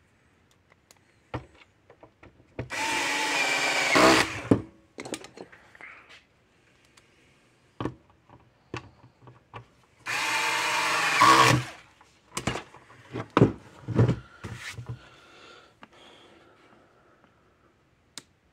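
Power drill/driver running screws in twice, each run about two seconds with its pitch sagging and rising under load, with clicks and knocks of handling the energizer's case and parts in between.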